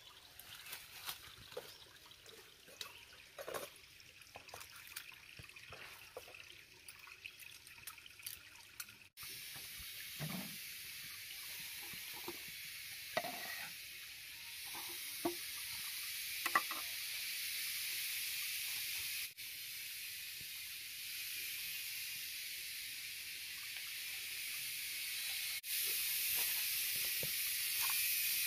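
Small clinks and knocks of kitchen handling over faint trickling water, then, about nine seconds in, a steady sizzling hiss of food cooking on the stove, growing slowly louder, with occasional knocks of a utensil against the pan.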